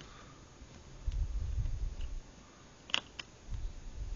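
Small clicks and low handling bumps of hands and a small screwdriver working the tiny screws on a cellphone's internal frame: two sharp clicks close together about three seconds in.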